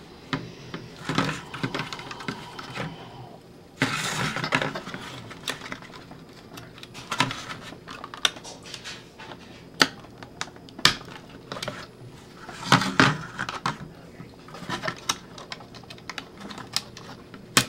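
Irregular sharp clicks, taps and a few short scrapes as a hard plastic RC car body is handled and pried at on a wooden tabletop.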